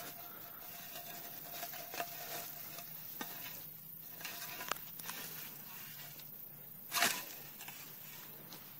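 Faint, steady, dry buzz of a rattlesnake's rattle in the weeds, with a brief louder knock about seven seconds in.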